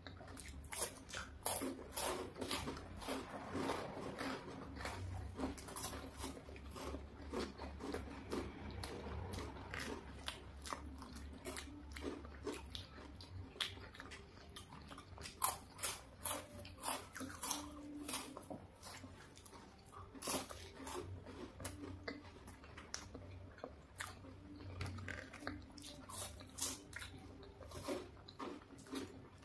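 Two people biting and chewing chocolate-coated wafer bars close to the microphone: many short, crisp crunches follow one another at an uneven pace.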